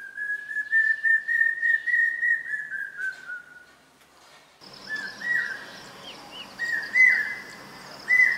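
Common hawk cuckoo calling: first a quick run of whistled notes that climbs slightly and then falls away, then, after a short pause, repeated three-note "brain-fever" phrases, each pitched a little higher than the last. A steady high hiss comes in at the same time as the three-note phrases.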